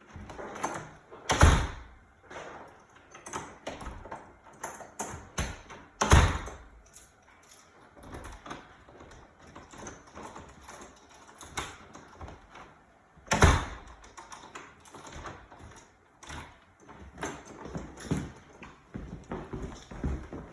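A door being worked on: irregular knocks, taps and clicks, with three much louder bangs spread through.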